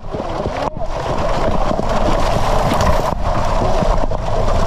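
Dense, continuous splashing from a crowd of milkfish thrashing at the surface inside a harvest net, a churning wash made of many quick small splashes.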